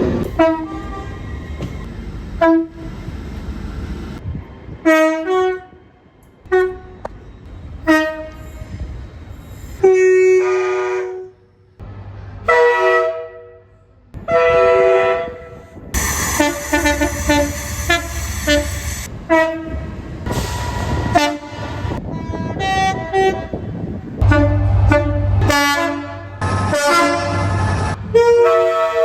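A long series of short train horn blasts at changing pitches, several sounding two or more tones together, starting and stopping abruptly. Between the blasts comes the low rumble of trains running.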